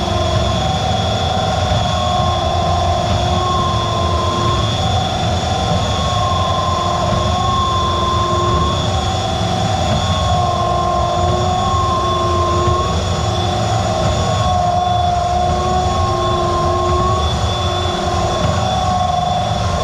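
Drain cleaning machine running steadily as it cables out a main sewer line: a constant low rumble with a high whine that wavers slightly in pitch.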